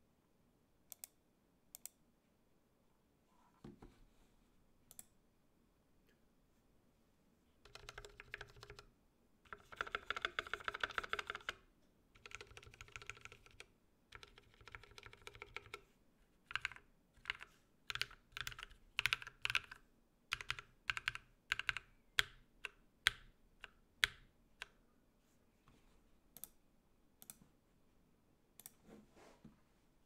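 Typing on an IDOBAO ID80 75% mechanical keyboard with lubed Novelkeys NK Cream linear switches and PBT keycaps. A few isolated clicks in the first seconds give way to fast, continuous typing from about eight to sixteen seconds in. After that come single keystrokes at a slower, uneven pace, which thin out near the end.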